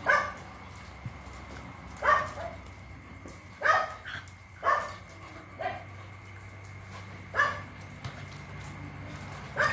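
Two dogs, a Phu Quoc ridgeback and a black dog, barking in short sharp bursts as they play-fight, about eight barks spaced a second or two apart.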